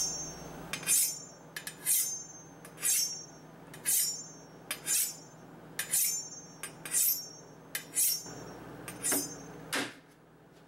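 Chef's knife being honed on a steel: about ten quick scraping strokes of blade along rod, roughly one a second, each with a bright metallic ring and a light click between strokes. The strokes stop just before the end.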